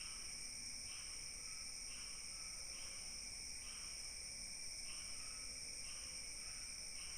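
Crickets or similar insects trilling steadily and high, with a second shorter chirp repeating about once a second underneath.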